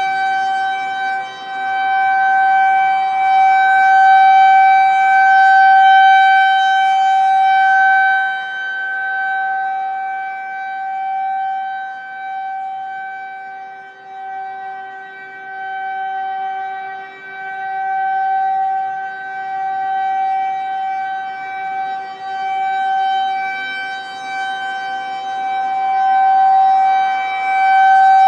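Federal Signal 2001-130 outdoor warning siren sounding a steady full-alert tone, fairly high-pitched with a slight wobble in pitch. Its loudness swells and fades over several seconds as the rotating horn sweeps toward and away from the recorder.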